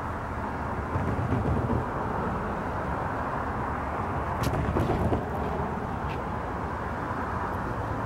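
Steady outdoor background rumble with no train horn, swelling louder about a second in and again around four and a half seconds, with a few faint clicks.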